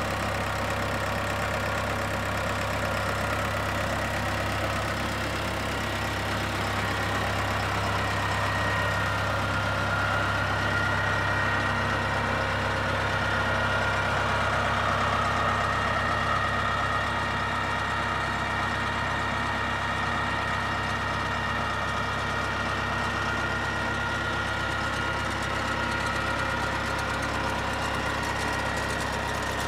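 Yanmar CT-65 crawler tractor's diesel engine idling steadily.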